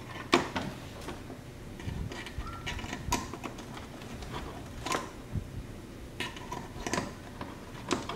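Hands fitting a plastic rear diffuser fin onto its screws under a car's rear bumper: scattered light clicks and knocks of the part and hardware being handled, with a few sharper taps.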